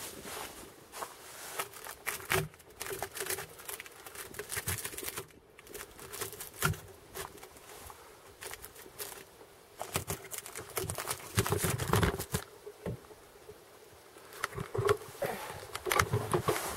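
Irregular taps and scuffs over a faint steady buzzing hum, with louder knocks and rubbing in the second half as the camera is handled and lifted from its spot near the end.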